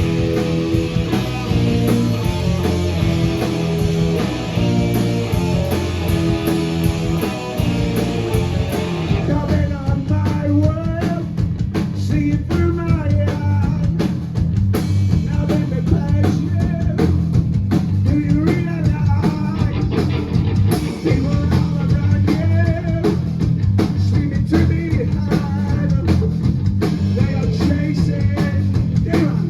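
Rock band playing live: a heavy, repeating guitar-and-bass riff over drums, with a singer's voice coming in about a third of the way through.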